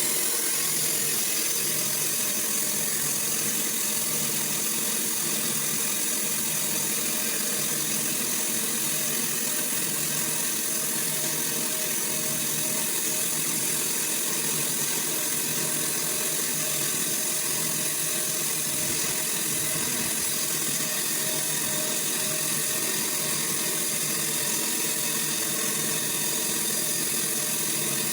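Sawmill machinery running steadily, a constant mechanical drone with a high hiss and no breaks.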